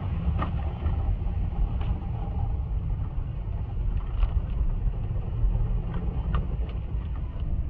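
Automatic car wash machinery and water heard from inside the car: a steady low rumble with a hiss of spray and scattered light taps on the body.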